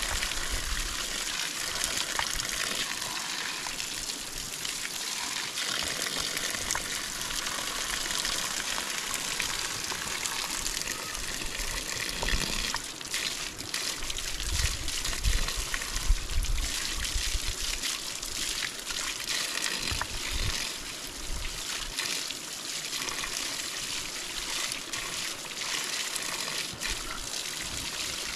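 Water running steadily, with scattered small splashes and a few low thuds about halfway through.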